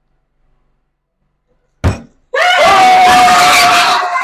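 Near silence, then a plastic water bottle lands on a tabletop with a single knock about two seconds in. Half a second later a group of people scream and cheer loudly as the flip succeeds.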